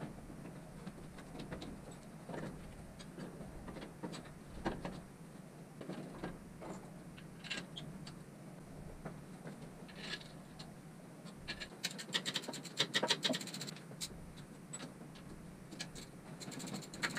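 Metal parts and hand tools clicking, knocking and scraping in a car's engine bay as a replacement alternator is fitted and its mounting bolts are started. About twelve seconds in comes a quick run of clicks.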